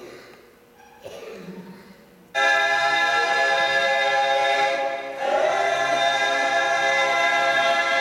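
Recorded music for a stage dance cuts in abruptly about two seconds in: a loud held chord with a choir-like sound, which dips briefly and swells again about five seconds in.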